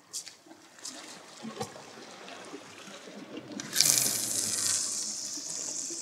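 Sea water washing against shore rocks: scattered small laps and splashes, then a louder hiss of water about two thirds of the way in that slowly fades.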